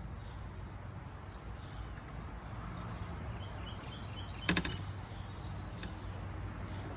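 Metal kitchen tongs clacking in one quick rattle about halfway through, then a single click a little later, over a steady low hum and faint bird chirps.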